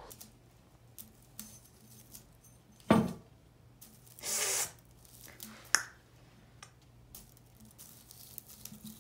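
A tabby kitten pawing at dried flowers in a ceramic vase: scattered small knocks and clicks, one louder thump about three seconds in, and a short dry rustle of the stems just after four seconds, over a faint low hum.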